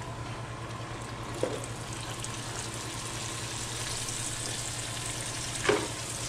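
Battered bream pieces deep-frying in a pan of hot oil: a steady bubbling sizzle with fine crackle. A short louder knock comes near the end.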